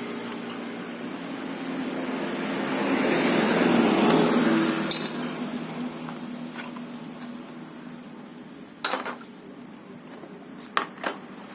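Metal tools and compressor parts clinking on a workbench: one sharp clink about five seconds in and a few lighter clicks near the end, after a rush of noise that swells and fades.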